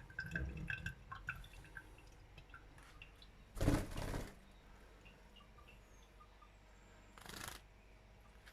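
Two-month-old lovebirds making small clicks and faint short chirps, then two brief rustling noises, the first louder, a few seconds in and near the end.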